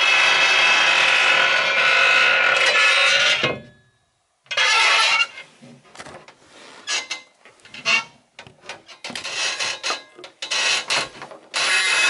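Loud rasping, scraping noise of something rubbing against wood. It runs continuously, cuts out about four seconds in, comes back as a string of short uneven scrapes, then turns continuous again near the end.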